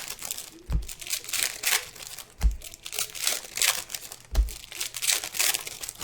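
Foil or plastic wrapping crinkling and tearing as card packs are handled, with dense irregular crackling and a low thud roughly every two seconds.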